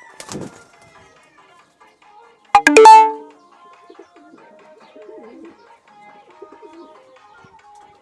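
A pigeon gives one loud, close coo about two and a half seconds in, over faint background music.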